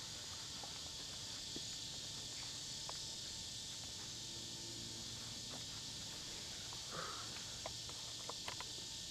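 Steady chorus of insects, with a few faint scattered clicks.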